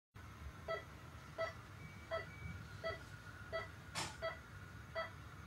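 Hospital heart monitor beeping with the pulse: a short pitched beep about every three-quarters of a second, over a faint steady tone. One sharp click about four seconds in.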